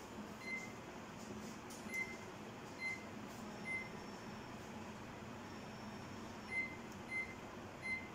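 GoldStar microwave oven's touch-control keypad beeping as its buttons are pressed: seven short, high beeps at uneven intervals, with a faint steady hiss in the background.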